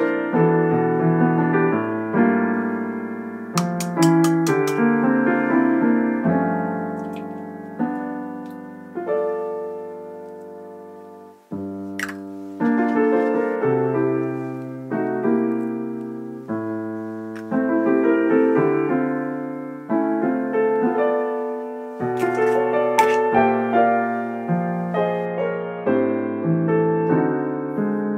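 Background piano music, a slow piece of notes and chords struck and left to ring out, with a few faint clicks here and there.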